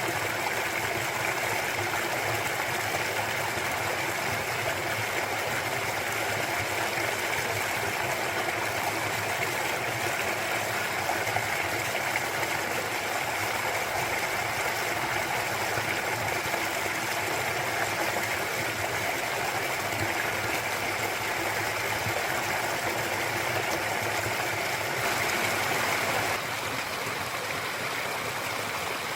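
Clear mountain stream flowing and splashing over rocks: a steady rushing of water that drops a little in level and tone near the end.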